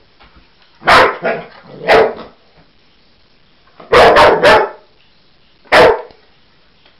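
A dog barking at a toy it is playing with: about six short, loud barks in bunches, one near the start, a quick run of three around the middle and one more near the end.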